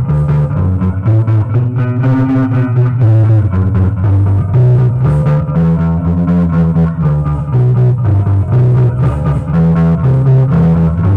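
Guitar playing a 12-bar blues, plucked notes over a repeating low bass figure.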